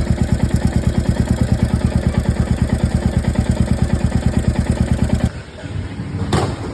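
Royal Enfield Meteor 350 single-cylinder engine idling with an even beat of about eight pulses a second and the metallic ticking its owner calls tappet noise, typical of incorrect valve clearance. About five seconds in the beat cuts off suddenly, leaving a quieter hum with a short rush of noise near the end.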